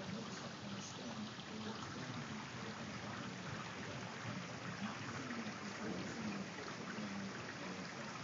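Steady rain falling during a thunderstorm, an even hiss without any thunderclap.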